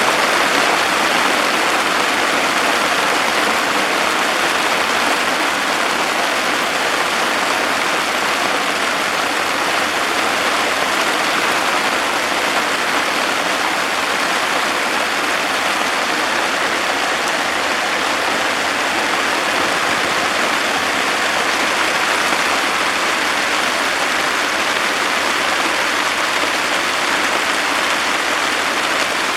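Heavy downpour rain falling steadily, a dense, even hiss with no let-up.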